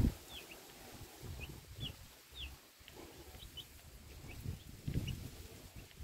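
A flock of week-old broiler chicks peeping: scattered short, high chirps with a few soft low rumbles underneath.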